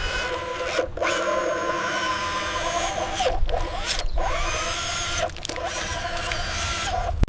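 Whirring of small electric motors and gearing, with pitch that shifts and glides as they change speed, broken by several brief gaps.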